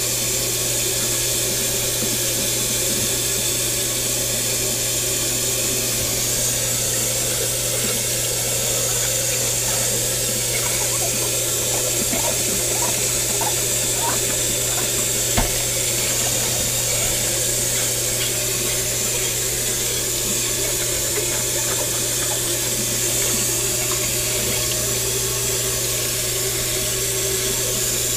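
Kitchen tap running into a stainless steel sink while glassware is scrubbed and rinsed by hand, with a few light clinks and one sharper knock about halfway through. A steady low hum sits underneath.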